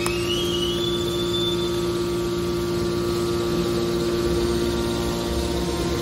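Hydraulic metal baler's power unit, an electric motor driving the hydraulic pump, running with a steady hum, with a short rising whine near the start.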